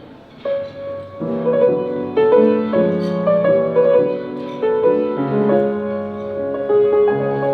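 Piano music: a melody over chords, with notes changing every half second or so.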